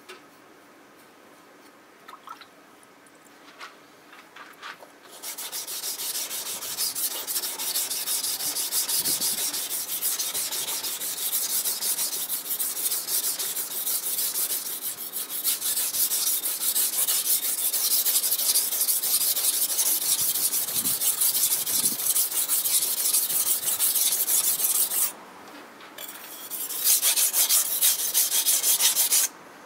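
Tosa-style kitchen knife blade being rubbed back and forth on a wet whetstone: a rapid, steady scraping hiss of many quick strokes. It starts about five seconds in after a few light clicks, breaks off briefly about 25 seconds in, and stops just before the end.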